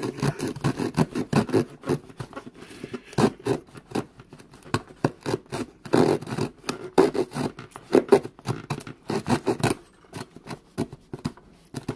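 The small wood-saw blade of a Victorinox Swiss Army knife sawing back and forth through a piece of wood in quick, repeated strokes, with a short pause partway through; the strokes thin out near the end as the corner comes off.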